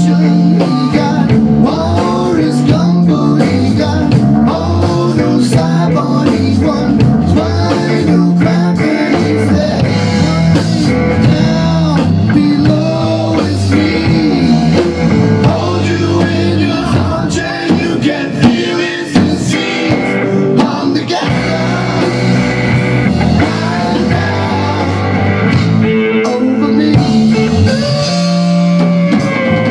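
Live rock band playing: electric bass, Les Paul-style electric guitar and a Tama drum kit, with a man singing lead into a microphone.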